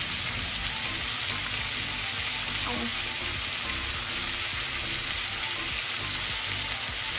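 Marinated chicken legs frying in butter and oil in a small frying pan: a steady sizzle with fine crackling.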